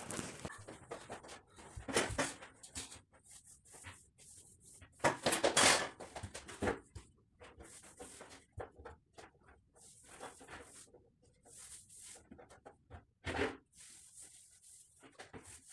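Paintbrush being stroked along a wall corner while cutting in: irregular scratchy swishes of bristles on the wall, with a few louder rustles about two and five seconds in.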